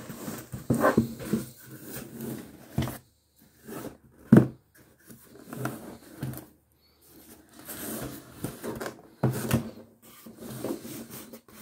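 Cardboard shipping box being handled and turned over, with rustling, scraping and scattered knocks against a table. The loudest knock comes about four and a half seconds in.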